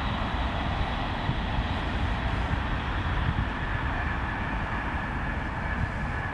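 Steady outdoor background noise: a low, fluttering wind rumble on the microphone over a constant distant vehicle hum.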